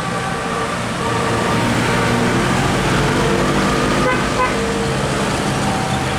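Bus telolet horn, a multi-tone musical air horn, playing a tune of short notes at changing pitches over the steady noise of a bus engine and traffic.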